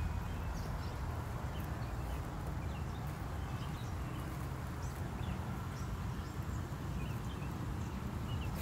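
Birds chirping faintly here and there over a steady low rumble on the microphone.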